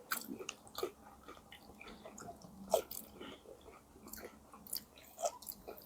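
A person chewing a mouthful of food close to the microphone: irregular soft mouth clicks and wet chewing noises, with one sharper click a little under three seconds in.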